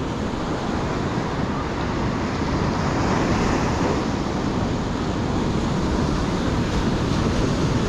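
Ocean surf breaking and washing up the sand, a steady rush that swells a little about three seconds in, with wind rumbling on the microphone.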